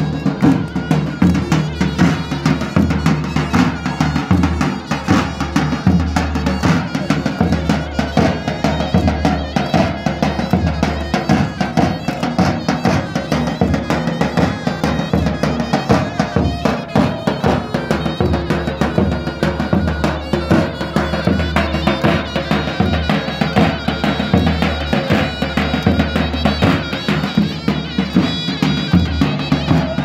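Live folk dance music: a large double-headed davul drum beating a steady dance rhythm under a loud, reedy wind instrument carrying the melody without a break.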